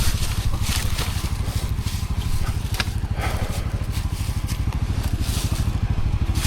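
ATV engine running at a steady low speed, its even low pulsing going on throughout, with scattered sharp clicks and cracks over it.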